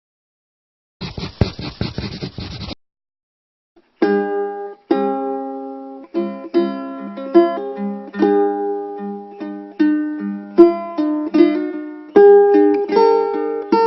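Ukulele being plucked, playing a melody of single notes and chords that starts about four seconds in. Before it, a short scratchy rubbing noise lasts under two seconds.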